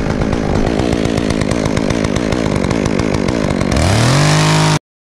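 Two-stroke chainsaw cutting through a limb, its engine running low and uneven under the load of the cut. Near the end it revs up to a steady higher pitch, running free, then the sound cuts off suddenly.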